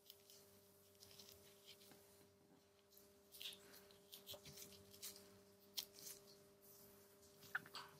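Faint scraping and light clicks of small hand tools working on a Samsung Galaxy S9 smartphone during a battery replacement, scattered irregularly with a few sharper ticks, over a faint steady hum.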